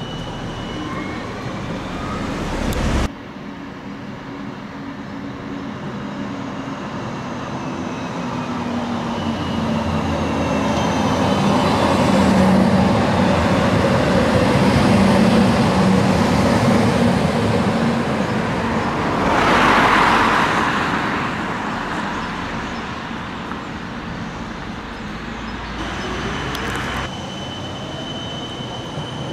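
Electric street trams running on city track. A tram rolls close past, its running noise swelling over several seconds and then fading, with a brief rush of noise about two-thirds through. Before and after it, trams approach with a thin, steady high whine.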